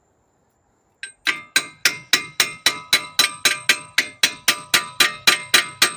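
Hammer striking a steel part over and over, about four even blows a second, each with a bright metallic ring. The blows begin about a second in and carry on without a break.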